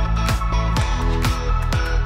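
Electronic dance background music with a steady kick drum, about two beats a second, under sustained synth notes.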